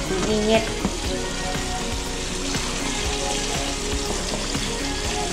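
Cornstarch-dredged pieces of janitor fish (suckermouth armored catfish) frying in a pan of hot oil: a steady sizzle with many small crackles.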